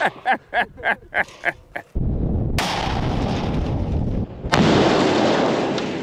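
Oxygen-acetylene combustion cannon built on a concrete truck going off. A quick run of short pulses is followed about two seconds in by a sudden loud blast that carries on as a dense rush of noise, and a second, louder burst comes a couple of seconds later and fades.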